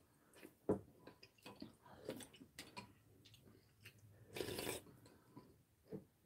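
Faint eating sounds of two people having clam sujebi (hand-torn dough soup) with spoons: soft chewing and slurping with scattered light clicks, and one longer slurp about four and a half seconds in.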